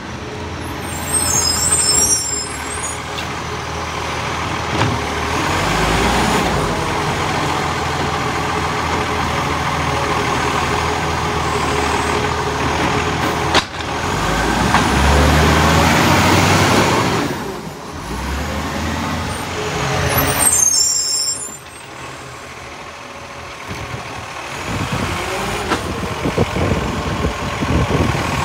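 Iveco side-loader garbage truck's diesel engine running as it moves along the kerb, with a sharp air-brake hiss about a second in and again about twenty seconds in. Near the end the engine works harder as the hydraulic side arm lifts a wheelie bin.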